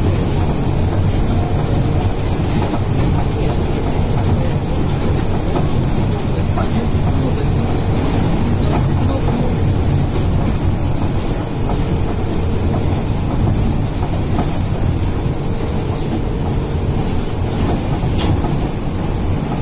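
Moving train: a loud, steady rumble of wheels and running gear, with a few faint clicks.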